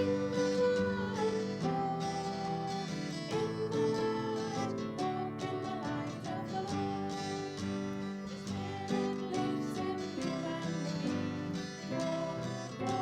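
Music led by acoustic guitar, with strummed and plucked notes.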